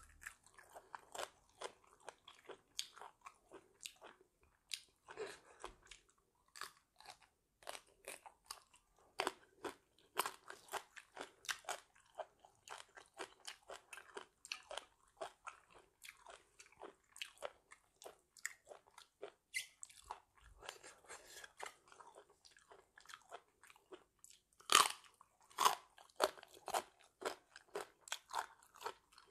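A person chewing and biting food: a steady run of crisp crunches and mouth clicks, with a few louder crunches near the end.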